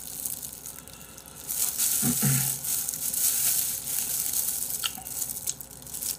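Close-up eating sounds of bone-in chicken feet in spicy broth being pulled apart by hand and gnawed: wet chewing and tearing, with plastic food gloves crinkling, a few small clicks, and a short hum about two seconds in.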